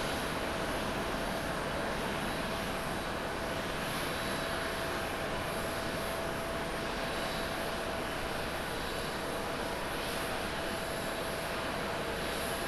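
Twin-engine Boeing 787 jet airliner climbing out after takeoff, its turbofan engines at takeoff thrust making a steady, even roar with a faint steady tone running through it.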